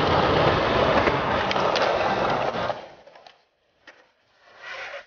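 Skateboard wheels rolling loudly on smooth concrete, dropping away about three seconds in. After that come a couple of light clicks and a short burst of noise near the end.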